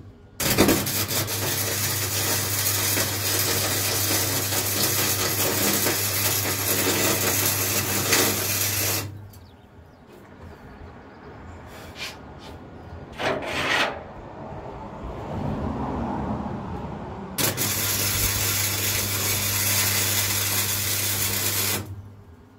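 MIG welder arc crackling on steel, with a steady low hum from the welder under it. It runs in two long stretches, about nine seconds and then about four and a half seconds, with a few short bursts in the gap between.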